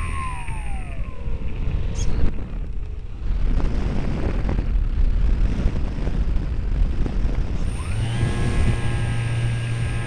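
Remote-control plane's motor and propeller, heard from a camera on board: the whine drops in pitch as the throttle comes back, a rough rushing noise fills the middle while the plane passes low over the grass, and about eight seconds in the motor spools back up to a steady whine.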